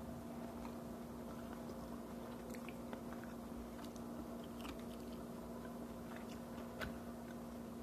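A person chewing and biting food, with a few faint clicks, over a steady low hum.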